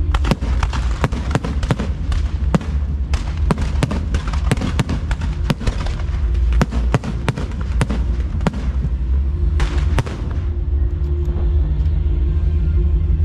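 Fireworks display: a rapid run of sharp bangs and crackles, several a second, for about ten seconds, over a steady low bass. The bangs thin out about ten seconds in, leaving mostly the show's music.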